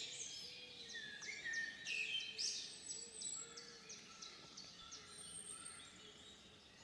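Faint woodland birdsong: several birds giving a run of short, high chirps and whistles over a soft background hiss.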